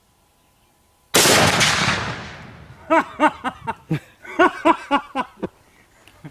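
A single shot from an Armalite AR-50 .50 caliber bolt-action rifle with a muzzle brake, about a second in, very loud and sudden, with a long rolling echo that dies away over a second or so. It is followed by a person's short vocal reaction.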